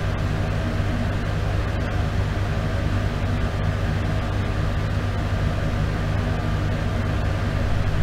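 Bathroom exhaust fan running steadily: a low motor hum under an even rush of air.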